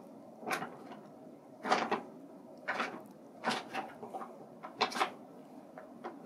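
Brown paper bag crinkling and rustling in short, irregular bursts about once a second as a kitten scrambles around inside it.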